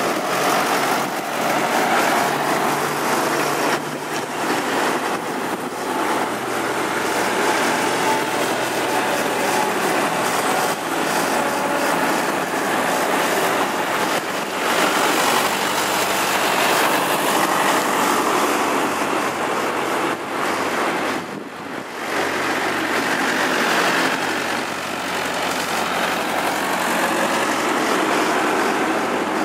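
Diesel farm tractors driving past one after another, engines running steadily.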